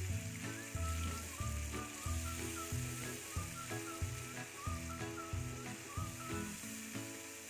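Onion and spice paste sizzling in oil in a non-stick frying pan as it is stirred with a silicone spatula, the masala being fried down with a splash of water. Background music with a steady rhythm plays over it.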